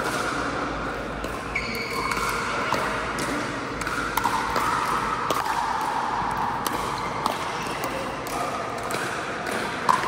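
Pickleball rally: sharp pops of paddles striking the plastic ball and the ball bouncing on the court, at irregular intervals, with a short squeak about one and a half seconds in.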